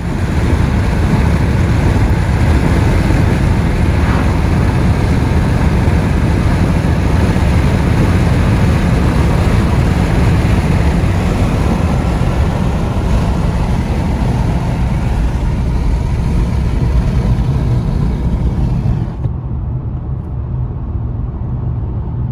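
Car driving at speed: a loud, steady rumble of road and wind noise. About 19 s in, the higher hiss drops away while the low rumble goes on.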